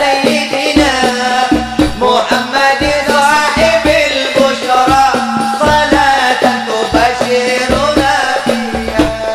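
Arabic salawat to the Prophet sung by a man leading through a microphone, over hand-drum percussion beating about twice a second.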